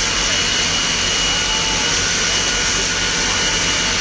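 Steady, loud rushing hiss over a low engine drone, with a thin high whine held throughout: fire-fighting water spray with a fire truck's pump engine running.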